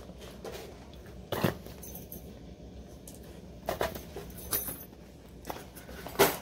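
Hands handling a small cardboard box and its packaging: about five short scrapes and clicks, the loudest near the end.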